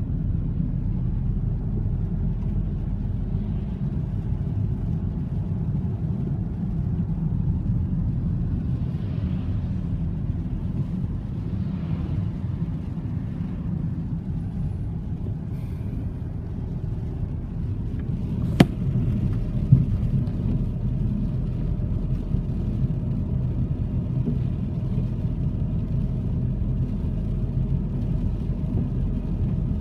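Steady low rumble of road and engine noise inside a moving car's cabin, driving on a wet road. Two short sharp clicks a little past the middle, about a second apart.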